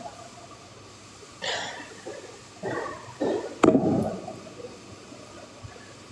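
Swallowing from a small bottle, then a sharp knock about halfway through, the loudest sound here, as the bottle is set down on the table.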